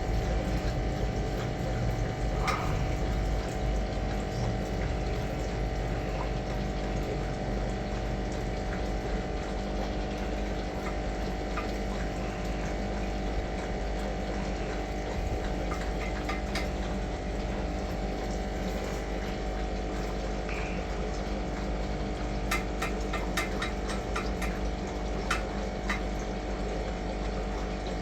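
Steady machine hum with many even tones, like a running motor or pump. A few short, light clicks come in near the end.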